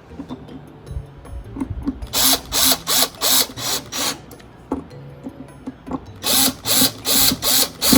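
Screws being driven in to fix a carry handle to a portable fridge: two runs of short, rapid driving strokes, about two and a half a second, a couple of seconds in and again near the end.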